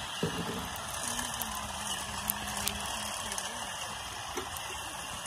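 Small twig fire crackling under a steel pot, with a few sharp snaps over a steady hiss and faint voices in the background.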